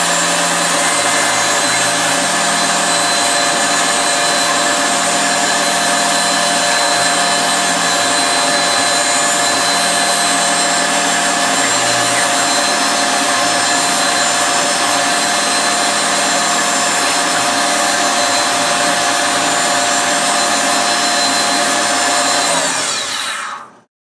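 Tormach PCNC 770 CNC mill's spindle running steadily at 10,000 RPM as a 1/16-inch two-flute end mill cuts the corners of a cutout in an enclosure box, a constant whine with several fixed tones. The sound fades out near the end.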